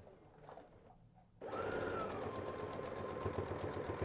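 Faint fabric handling, then about a second and a half in an electric sewing machine starts up and runs steadily, stitching fast. Its motor whine dips slightly and then holds one pitch.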